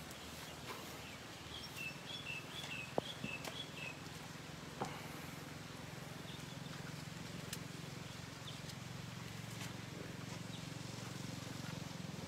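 Light rain falling outdoors, with a bird calling a quick run of about seven high chirps a second or two in. A few faint knocks are heard, and a steady low hum sets in about three seconds in.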